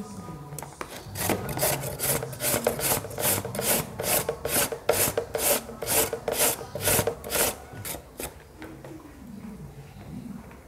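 Young green papaya being shredded on a hand shredder: quick, rhythmic rasping strokes, about two and a half a second, that stop about eight seconds in.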